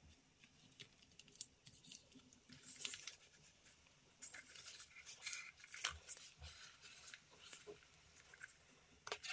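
Near silence with faint handling noise from a wireless office headset: scattered small clicks and rubbing of plastic and padding as hands turn its earcups and flex its headband.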